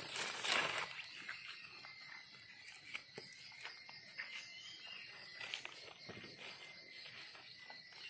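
Small knife digging and scraping in gritty soil and dry leaf litter, with scattered crackles and rustles and a louder rustle about half a second in.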